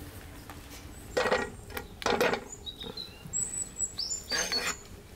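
Butter pushed around a hot non-stick frying pan with a wooden spoon: three short, loud bursts of sound about a second in, a second later and near the end. Small birds chirp briefly in between.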